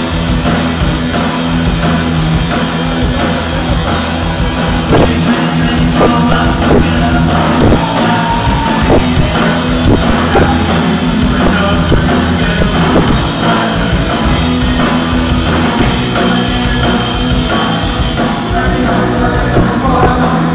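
A live rock band playing at full volume: electric guitars, bass guitar and a drum kit.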